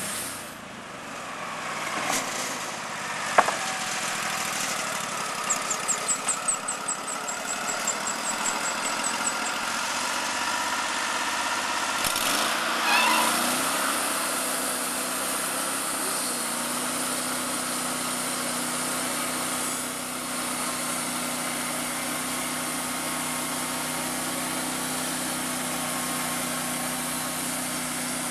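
Band sawmill's engine running steadily. A sharp click comes a few seconds in, followed by a run of quick ticks, about three a second, for roughly four seconds.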